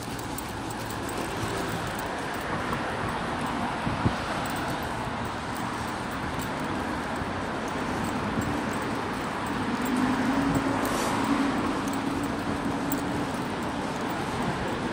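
Street traffic noise, steady, with a vehicle's engine hum growing louder for a few seconds from about ten seconds in. A single sharp knock about four seconds in.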